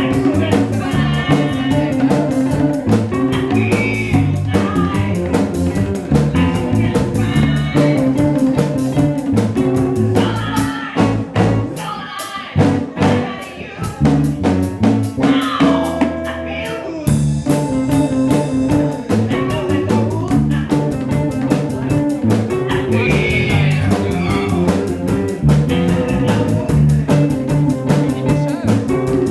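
Band music with guitar, drum kit and a singing voice, with a sparser, quieter stretch about halfway through.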